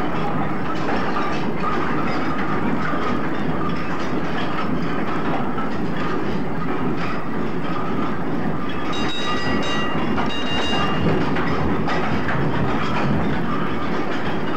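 Archival transport sound recording played from an LP: steady mechanical running with a rhythmic clatter, and a brief high-pitched squeal about nine seconds in.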